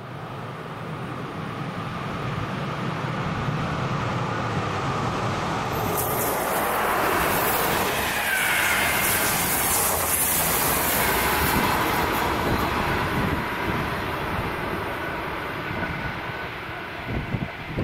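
Electric-locomotive-hauled RegioJet passenger train passing at speed: the rolling noise of wheels on rail builds up, is loudest for several seconds as the coaches go by, then fades as the train runs off into the tunnel.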